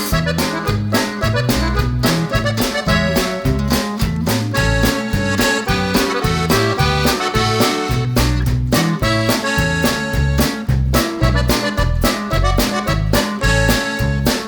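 Upbeat instrumental music with a steady beat, a bouncing bass line and an accordion-like lead.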